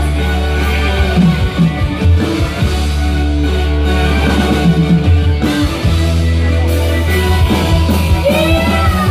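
Live dangdut band music played loud through a PA system: a steady heavy bass and drums under keyboard, with singing and a sliding melody line near the end.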